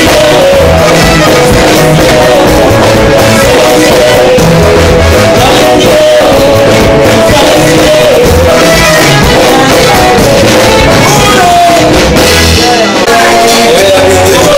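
Live band playing loudly in rehearsal, with electric guitar, keyboard and drums, and a man singing lead into a handheld microphone.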